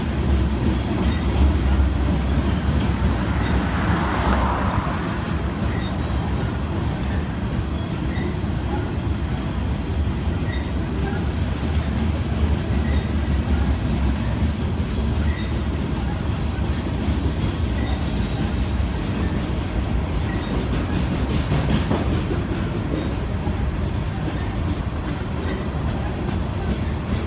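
Freight train of covered hopper cars rolling past, a steady rumble of steel wheels on rail.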